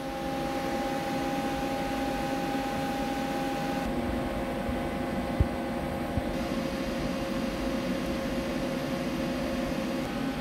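Steady machine-shop hum with a few steady tones in it, from the stopped lathe and shop equipment. Two light metallic clicks come about five and six seconds in as an inside micrometer is set against the cast-iron bore.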